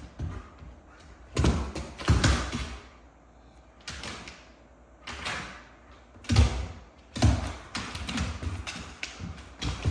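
A German shepherd's paws thudding and its claws scraping on a hard floor in irregular bursts as it pounces after a light spot.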